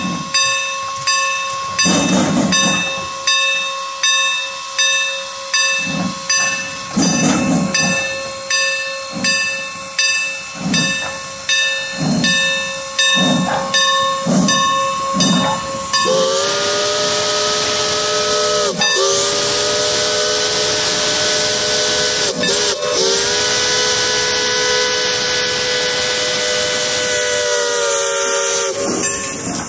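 Steam locomotive Norfolk and Western 475 working under steam, its exhaust chuffing about every three quarters of a second over a steady whistling tone. About halfway through, its whistle sounds a chord of several notes in three long blasts, the last held longest.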